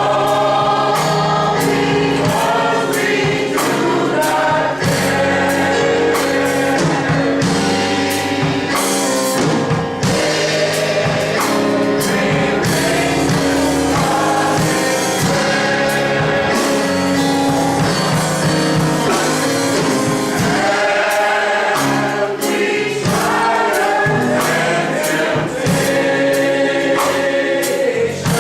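Gospel choir singing with instrumental accompaniment and a steady beat.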